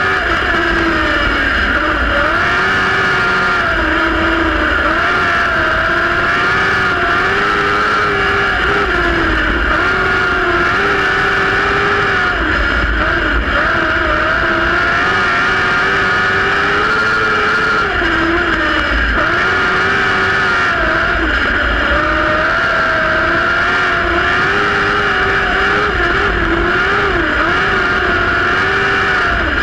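Compact speedcar engine heard from onboard while racing flat out, its pitch rising and falling over and over as the driver comes on and off the throttle.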